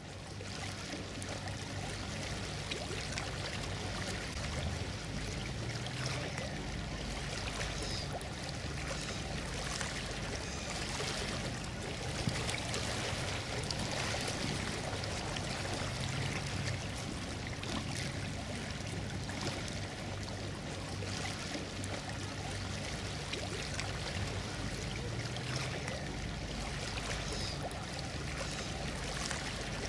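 Harbour water lapping and trickling steadily, with a faint low hum underneath.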